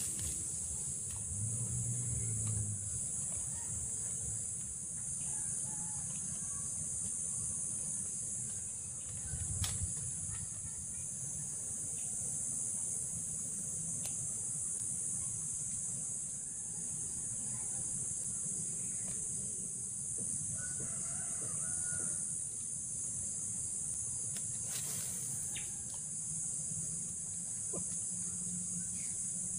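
Steady high-pitched drone of insects over a low rumble, with a few faint clicks.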